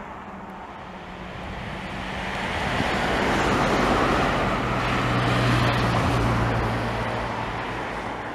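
A road vehicle passing close by: a steady noise of engine and tyres that swells over a few seconds with a low engine hum, then fades away.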